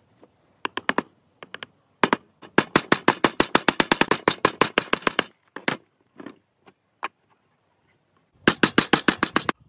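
Hammer tapping nails into thin wooden boards: a fast run of light strikes, about ten a second, from about two seconds in, a few single knocks, then another fast run near the end.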